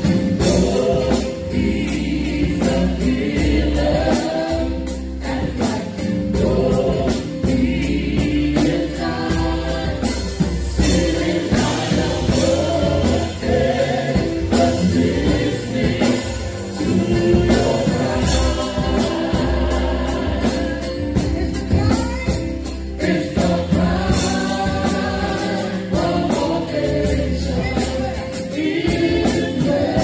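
A mixed group of men and women singing gospel together in harmony through handheld microphones, over a steady beat.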